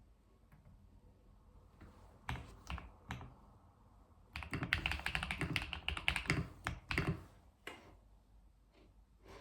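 Typing on a computer keyboard. A few scattered keystrokes come first, then a fast run of keystrokes for about three seconds in the middle, then a few more single keys.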